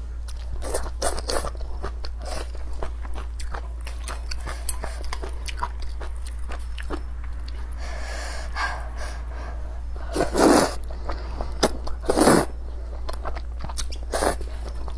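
Close-up eating sounds of a person chewing sweet potato vermicelli noodles: many small wet clicks of chewing, with two louder, longer eating noises about ten and twelve seconds in.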